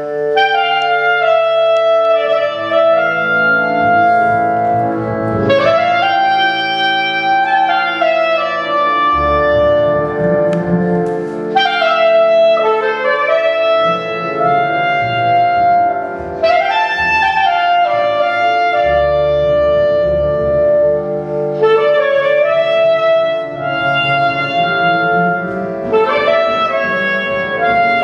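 Chamber music: a clarinet plays phrases that climb in quick upward runs about every five seconds, over sustained harmonium chords. A double bass comes in with low notes about nine seconds in.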